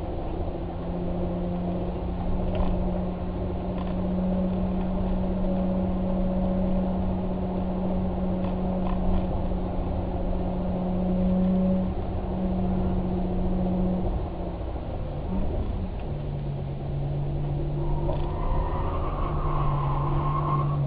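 A motor vehicle's engine running steadily with a low rumble. Its pitch drops a step about three-quarters of the way through.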